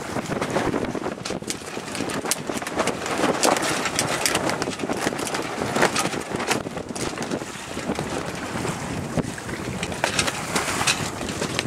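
Wind blowing over the microphone aboard a sailing yacht under way, with the rush of water along the hull and frequent short crackles.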